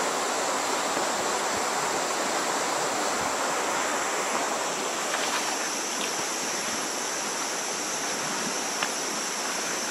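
Shallow, rocky jungle river rushing steadily over stones, an even continuous hiss of flowing water.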